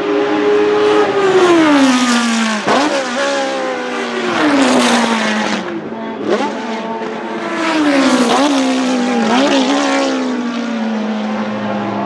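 Historic racing car engines at high revs, loud. The pitch slides down several times and is broken by sharp quick jumps, the blips of downshifts as the cars brake and pass.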